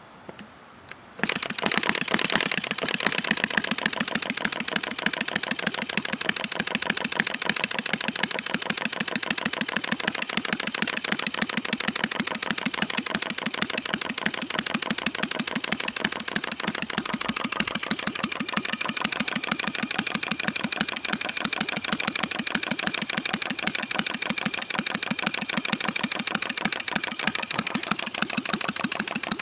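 Rudy Kouhoupt-design non-compression model engine, running on Coleman fuel with electronic ignition, flicked over by hand and starting about a second in. It then runs steadily with a rapid, even stream of sharp firing clicks.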